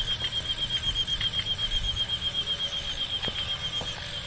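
A high-pitched chirp pulsing rapidly and evenly, about eight pulses a second, with a few faint clicks.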